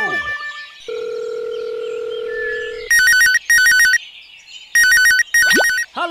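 Telephone ringtone sound effect for a mobile phone: two double rings of a fast warbling trill, loud and electronic. Before it there is a falling glide, then a steady low tone lasting about two seconds.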